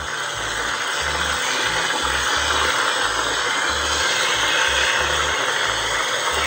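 Chicken karaage pieces frying in hot oil, a steady, loud sizzling.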